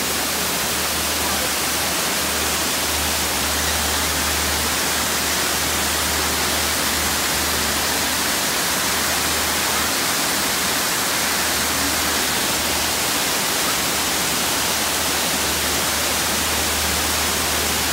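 Artificial rock waterfall, water pouring and splashing steadily over boulders close by, with a low rumble underneath.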